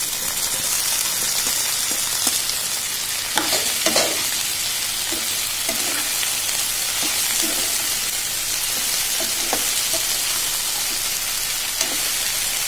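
Hot mustard oil sizzling with a steady hiss in a wok as chopped vegetable pieces are tipped onto frying onions and stirred in, with a spatula scraping and knocking against the pan now and then.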